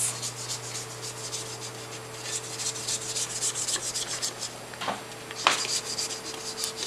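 Scraper spatula scraping around the sides of a stainless steel stand-mixer bowl of cookie dough: a quick run of rasping strokes, with two sharp knocks against the bowl about five seconds in.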